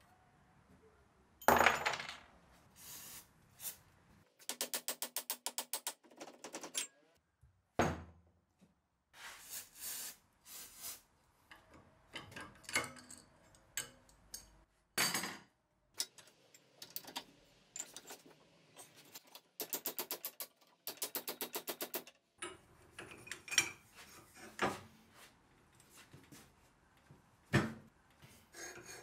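Metal-on-metal clinks and knocks of nuts, bolts and wrenches being worked on a rusty cast-iron screw press held in a bench vise, with parts set down on the bench. Two stretches of rapid, even clicking, one a few seconds in and one about two-thirds through.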